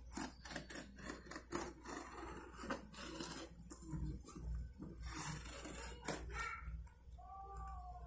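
A knife cutting and scraping through packing tape and cardboard on a shipping box: irregular scrapes, rasps and sharp clicks, with a short squeak near the end.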